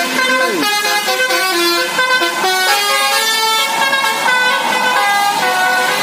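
Basuri musical car horns playing melodies against each other, several horn tunes overlapping in quick changing notes, with a short falling pitch slide about half a second in.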